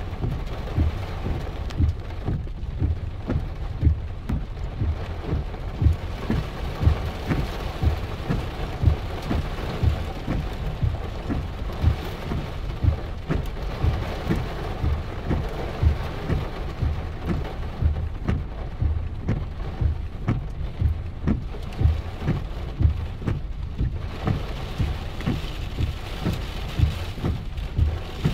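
Heavy rain falling, with big drops striking close to the microphone in a dense, irregular run of dull thuds.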